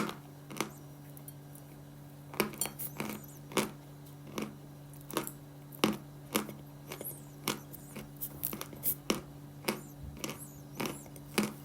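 Pieces of dry Khrapovsky natural chalk crunching in sharp, irregular cracks, about one or two a second, over a steady low hum.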